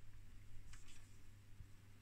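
Quiet room tone with a faint steady low hum and a couple of faint handling ticks.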